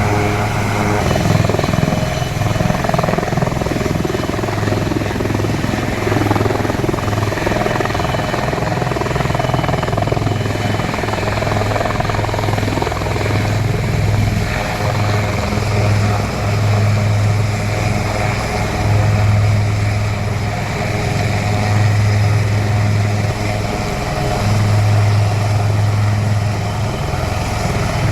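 Military helicopter running, its rotor and turbine making a loud, deep, steady throb that swells and eases every few seconds.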